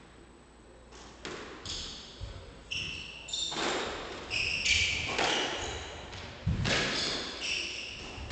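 Squash rally: sharp knocks of the ball off rackets and walls, with short high squeaks of court shoes on the wooden floor between the hits.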